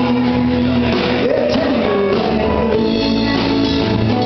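Live band playing a rock song on acoustic and electric guitars, drum kit and keyboard, with a man singing at the microphone.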